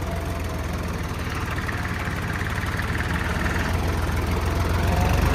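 Swaraj 855 4x4 tractor's three-cylinder diesel engine running steadily under load, pulling an 11-tine cultivator through the field in four-wheel drive; it grows a little louder near the end.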